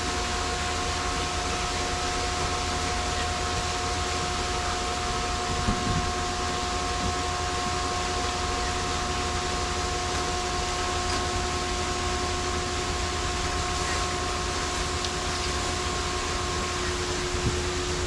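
Steady machinery drone with a few constant whining tones, from equipment running while the catch is offloaded. There are a couple of light knocks about six seconds in.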